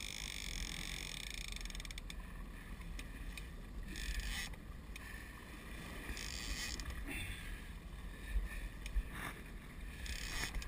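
Fishing boat under way at slow trolling speed: a low, steady, muffled rumble of engine and water, with a couple of faint knocks near the end.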